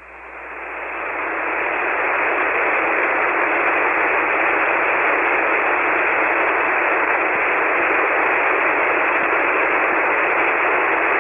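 Steady hiss of an HF ham radio receiver on 40-metre SSB (7.185 MHz), with no station transmitting. It swells up over the first two seconds, then holds steady.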